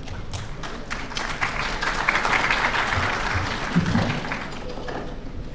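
Large audience applauding in a big hall. The clapping builds over the first couple of seconds and dies away near the end.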